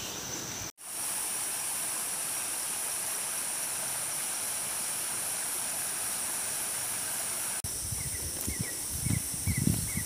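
A steady high-pitched insect drone over an even outdoor hiss, which drops out abruptly for a moment about a second in. In the last two seconds, footsteps on the trail come in with a quick run of short chirps.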